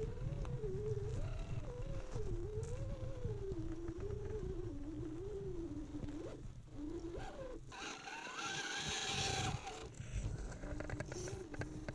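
Electric motor and geartrain of a 1/10-scale RC crawler whining, the pitch wavering up and down with the throttle, over a low rumble. About eight seconds in, a louder hissing whine with a rising tone lasts nearly two seconds.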